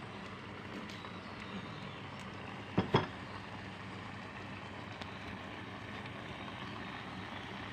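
Steady noisy hiss, with two sharp knocks in quick succession about three seconds in.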